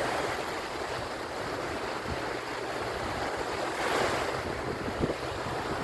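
Small Lake Erie waves washing onto the shore, swelling about four seconds in, with wind buffeting the microphone. A short knock about five seconds in.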